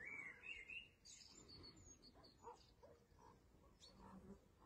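Near silence, with faint bird chirps in the background.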